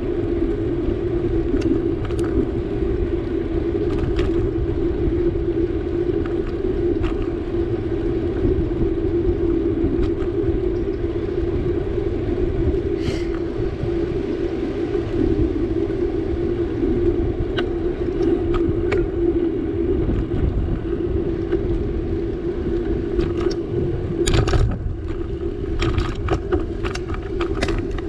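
Bicycle riding along a road, heard from a camera mounted on the bike: low wind rumble on the microphone and tyre noise with a steady hum. A run of clicks and knocks comes near the end.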